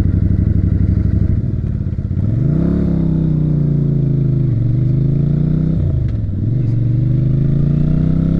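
Motorcycle engine idling with a steady pulsing note, which the rider wonders is a little high. About two seconds in it revs up as the bike pulls away, then climbs in pitch through the gears, dropping at an upshift about halfway through and again about two-thirds through.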